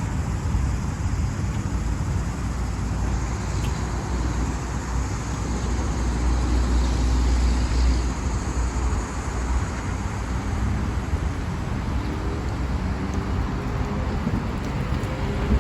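Inside the cabin of a New Flyer D40LF diesel city bus under way: a steady low engine and road rumble, with a few engine or transmission tones rising in pitch near the end. The uploader calls this bus's transmission bad.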